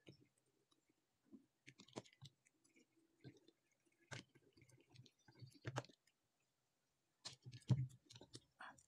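Faint scattered clicks and taps of hands handling wires and a soldering iron on a tabletop, with one louder tap a little before the end.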